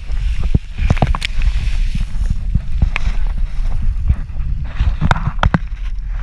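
Wind buffeting the microphone of a camera mounted on a parasailing harness in flight: an uneven, gusting rumble with scattered knocks and rustles from the harness.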